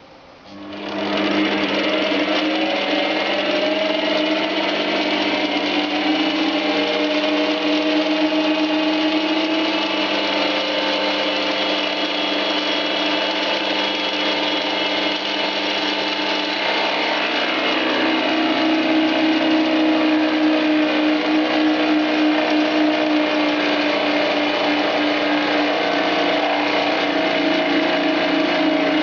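Small bench metal lathe driving a 20 mm replaceable-tip carbide milling cutter at about 2000 RPM, taking a 1.5 mm pass in medium-to-high carbon steel. The machine starts about half a second in, then runs steadily with a whine of several tones that shift slightly about two-thirds of the way through.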